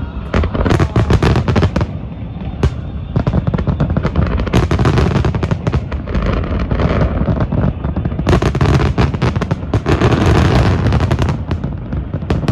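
Fireworks bursting in rapid succession, many bangs and crackles overlapping, with a brief lull about two seconds in and the densest barrage in the last third.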